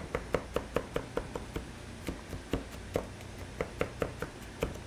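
Chef's knife mincing garlic on a wooden cutting board: quick, even knocks of the blade on the board, about five a second at first, then slower and more spaced out, over a steady low hum.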